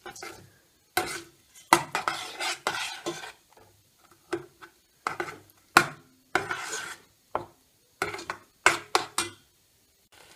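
Metal spoon stirring thick paste in a stainless steel pot, scraping and knocking against the pot's sides and bottom in uneven strokes with short pauses between them.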